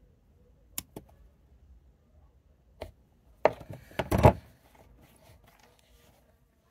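Bonsai cutters snipping spruce twigs: a few separate sharp snips, then a louder run of crunchy cuts with needles rustling about three and a half to four seconds in.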